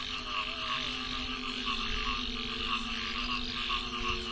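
A chorus of frogs calling, short croaks repeating over and over, with a steady low hum underneath.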